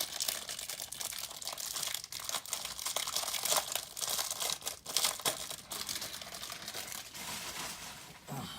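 Packaging of a trading-card hanger box being torn open and crinkled by hand: a dense, continuous run of rips and crackles that fades toward the end.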